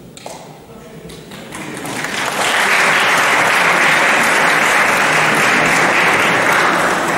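Audience applauding, swelling up over the first two seconds or so and then holding steady.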